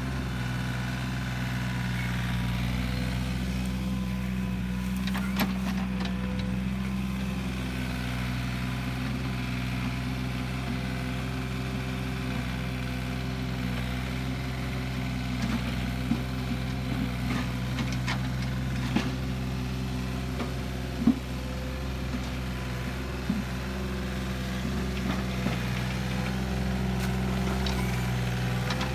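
Komatsu mini excavator's diesel engine running steadily while it works in the pond, with a few sharp knocks in the second half.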